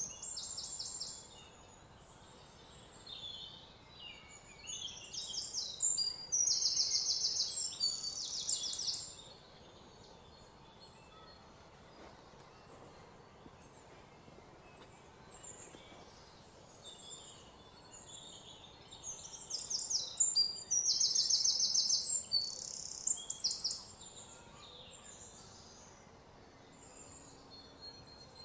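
Outdoor chirping: rapid, high-pitched trills that come in bursts of a second or so. They are loudest about six to nine seconds in and again around twenty to twenty-four seconds, over a faint steady background.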